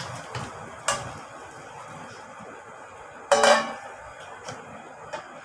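Metal ladle knocking and scraping against steel pots while cubed pumpkin is stirred in boiling water, with a few light clinks and one loud, ringing metal clank a little past three seconds in.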